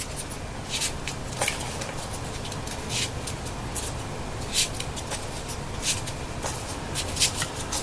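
Folded paper triangle units for 3D origami being pushed together by hand: scattered short paper rustles and clicks, about eight over the span, over a steady background hiss.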